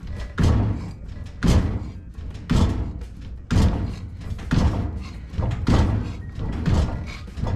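Hand-operated sheet-metal shrinker clunking shut on a steel flange, one stroke about every second, working the flange so it shrinks and curves.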